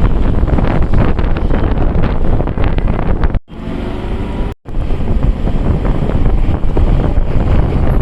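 Heavy rain and wind buffeting the microphone: a loud, dense rushing and crackling noise, cut off twice around the middle by brief dropouts with a quieter stretch between them.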